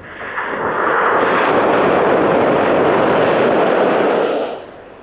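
Ocean wave breaking and washing in. The rush builds over about a second, holds steady for about three seconds, then fades out near the end.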